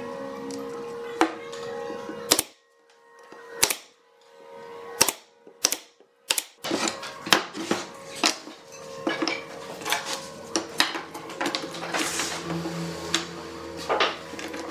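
Pine boards and chair parts handled and set down on a wooden workbench: a string of sharp wooden knocks and clacks at an uneven pace. For a few seconds the background drops away and only a few isolated knocks are heard, then the clatter resumes, with a metal bar clamp handled near the end.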